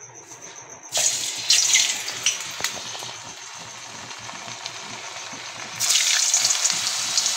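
Raw potato slices frying in hot oil in a deep pan: a sudden loud sizzle about a second in, easing to a steady bubbling hiss, then a second loud burst of sizzling near the end as more slices go into the oil.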